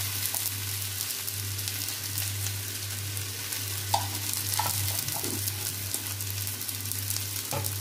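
Onion podi dosa frying face-down on a hot dosa tawa, the onion-topped side against the pan, giving a steady sizzle with fine crackling. A low hum runs underneath.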